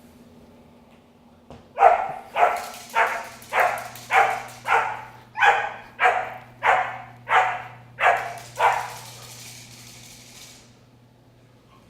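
A young German Shepherd puppy barks in a steady run of about a dozen sharp barks, roughly two a second, starting about two seconds in and stopping near the end.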